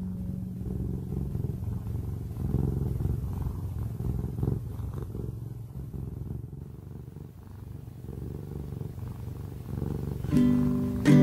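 Cat purring, a low uneven rumble that swells and fades, as part of a song; plucked guitar notes come in near the end.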